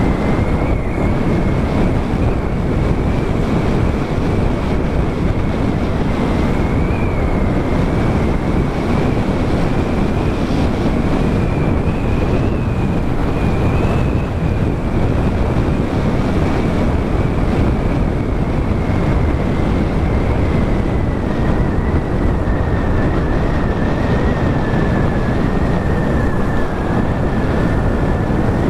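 Wind rushing over a helmet-mounted microphone on a moving motorcycle: a loud, steady rush with the bike's engine and road noise beneath it and a faint high whine that drifts slightly in pitch.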